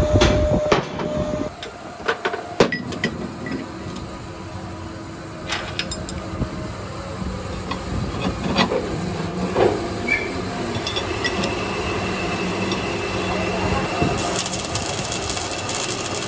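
Steel tubes knocking and clanking as they are handled and fitted together, over a steady machine hum. About two seconds before the end, the crackle of electric arc welding starts.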